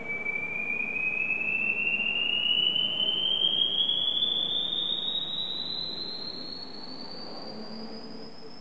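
A single pure electronic tone that comes in suddenly and glides slowly and steadily upward in pitch, growing fainter over the second half, over faint steady background noise.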